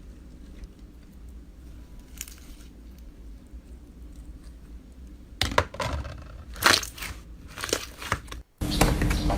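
Slime being squeezed and pressed, giving a run of sharp crackling, crunching pops that starts about halfway through, after a faint low rumble. Near the end it cuts to a steadier hiss with a low hum.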